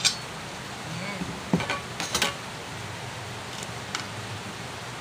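A cooking utensil clinking and knocking against a cooking pot during stirring. The sharpest clinks come between about one and a half and two and a half seconds in, with a couple of faint ticks later, over a steady low hiss.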